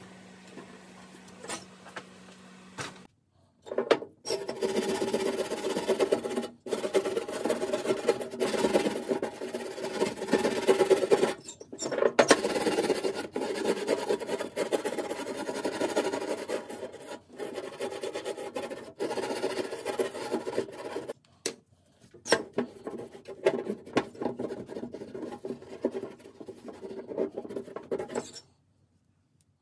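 A faint steady hum, then a brush and a cloth rag scrubbing and rubbing on the painted steel top of a vintage Kennedy tool box, working around the brass handle brackets. The scrubbing comes in several stretches that stop suddenly.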